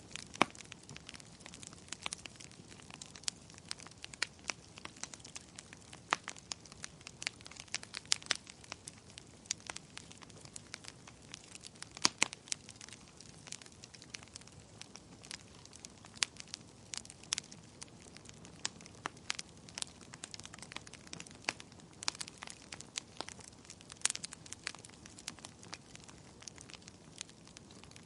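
Fire crackling: irregular sharp pops and snaps, a few loud ones among many small ones, over a faint steady hiss.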